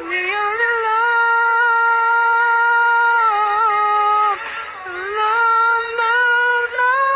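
A ballad being sung in a high voice that holds two long notes, with a short break and slide up into the second note about four and a half seconds in.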